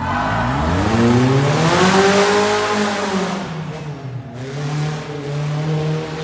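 Engine of a small tube-frame tuff truck revving up as it accelerates, its pitch rising for about two seconds, then dropping back and running steadily at a lower pitch.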